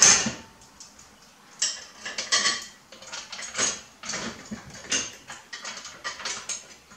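Metal clinking and rattling of steel parts, bolts and tools against a steel tube grill guard and its mounting brackets. A sharp clank at the start, then irregular bursts of clinks every second or so.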